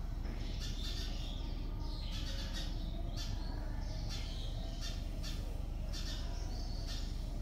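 Birds calling repeatedly, short high squawks coming about every half second, over a steady low hum.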